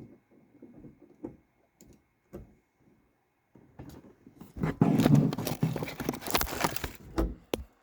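Handling noise: a few scattered clicks and knocks, then from about halfway a few seconds of loud rustling and clattering as things are handled close to the microphone.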